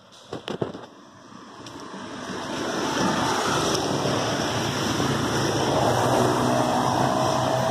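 Road traffic passing close: a motorcycle and then a car go by, their engine and tyre noise swelling over the first few seconds and then staying steady. A few faint clicks come just before it builds.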